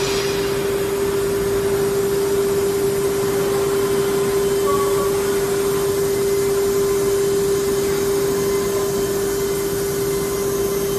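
HOLZTEK HT-R4F four-head CNC nesting router running: a steady mechanical hum with one constant mid-pitched tone under an even rushing noise.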